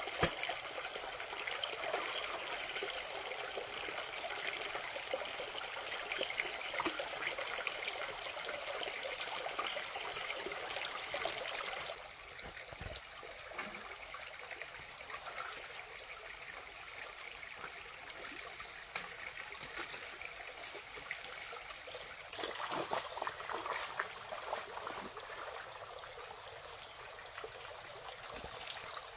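Small stream running and trickling, a steady wash of water. It drops noticeably quieter about twelve seconds in, and there is a brief louder patch some ten seconds later.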